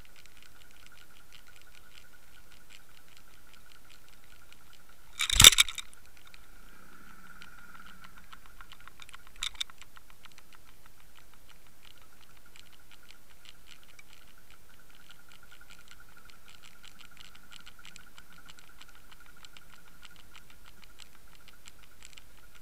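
Underwater sound picked up by a Water Wolf camera towed on a line: a steady faint high whine with dense fine ticking, broken by one sharp knock about five seconds in and a smaller click about four seconds later.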